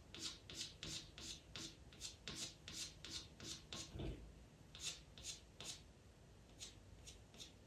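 Pastel pencil scratching across Pastelmat paper in quick short strokes, about two or three a second, drawing fine hairs of fur; the strokes thin out near the end.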